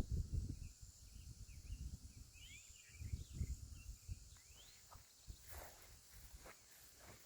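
A hiker's footsteps on a dirt trail, faint and uneven, with short rising bird chirps scattered through.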